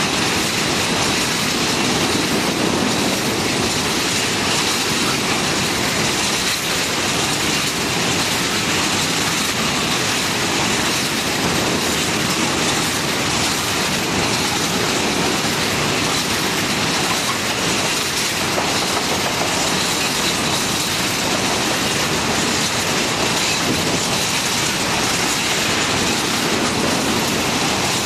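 Long rake of coal hopper wagons rolling past close by: a steady, very loud rumble and rattle of steel wheels on rail that keeps up without a break.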